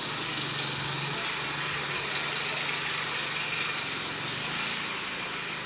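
Steady low mechanical hum under an even hiss of background noise, like a running motor or engine.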